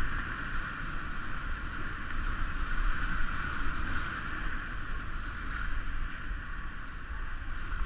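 Steady rush of whitewater rapids around an inflatable kayak running them, with a low rumble underneath.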